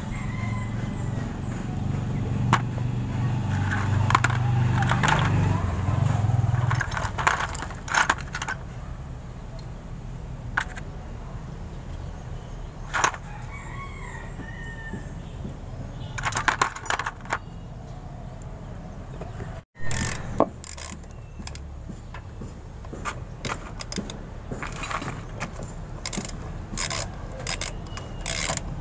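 Sharp metal clicks and clinks of wheel nuts and a socket wrench being fitted onto a three-wheeler's wheel studs, coming thickest toward the end. A rooster crows in the background, and a low rumble runs through the first several seconds.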